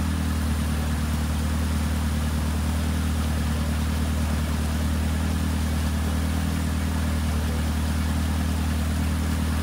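Off-road 4x4 truck's engine running at a steady, unchanging speed: a low, even hum that neither rises nor falls.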